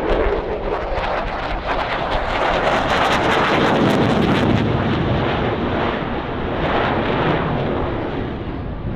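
F-22 Raptor's twin Pratt & Whitney F119 turbofans roaring past on a demo pass, with a crackling edge to the noise. The sound builds to its loudest a few seconds in, then slowly fades.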